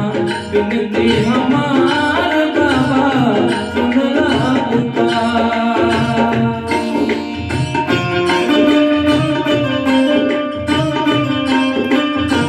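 Bhajan accompaniment from a Roland XPS-10 keyboard: a looped tabla-style drum rhythm under a sustained keyboard melody. A man sings into a microphone over the first few seconds, and the rest is instrumental.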